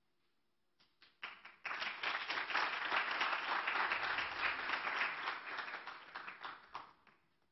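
Audience applauding: a few scattered claps about a second in quickly swell into full applause, which dies away near the end.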